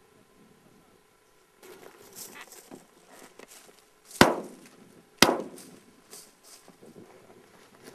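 Two shotgun shots about a second apart, each trailing off in a short echo, with softer scuffing noises before and between them.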